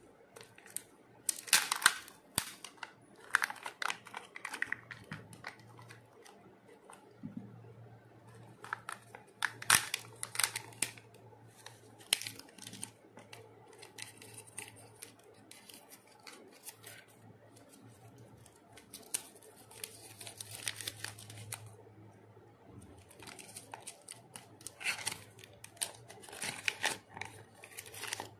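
Hands unwrapping a Kinder Joy egg: the foil seal strip peeled off the plastic shell, then the plastic halves and small plastic toy pieces clicking and rustling in irregular bursts. Near the end a paper sticker sheet crinkles as it is unfolded.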